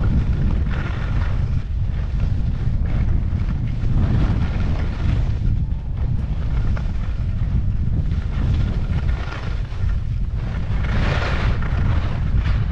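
Wind rumbling on the microphone while skiing downhill, with the hiss and scrape of skis on snow swelling and fading, loudest about eleven seconds in.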